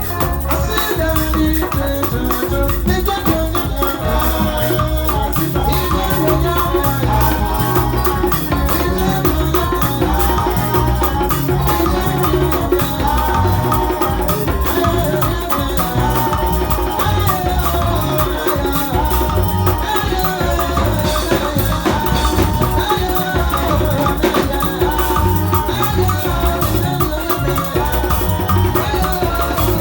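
Loud music with a steady drum beat, a shaker-like rattle and a melody line over it.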